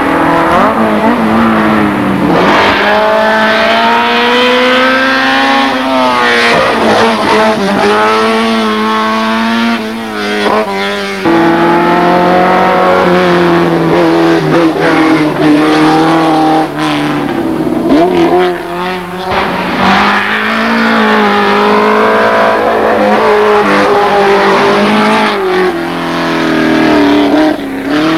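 Rally car engines revving hard under acceleration, the pitch climbing through each gear and dropping at each shift, over and over as the cars drive past one after another.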